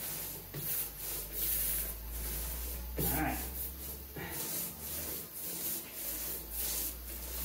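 A small hand roller rolled back and forth over a glue-coated wood panel, a repeated rubbing swish, spreading veneer glue out thin.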